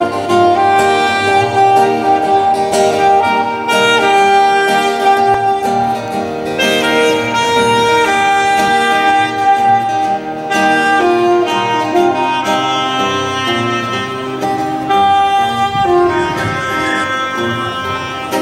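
Saxophone playing a slow melody of long held notes over an instrumental backing.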